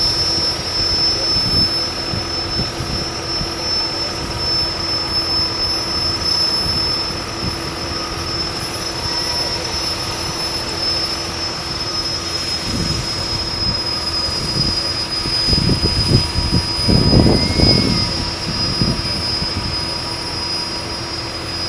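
Modified pulling tractor's engine idling steadily, with a high constant whine over it. Near the end the engine swells louder for a moment.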